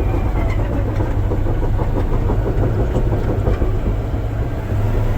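Caterpillar D8T bulldozer on the move: its diesel engine running steadily under the continuous clanking rattle of the steel tracks.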